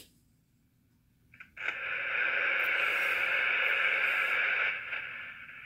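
Royce I-600 23-channel mobile CB radio switched on: a click about a second and a half in, then steady receiver static hissing from its speaker, easing off a little near the end.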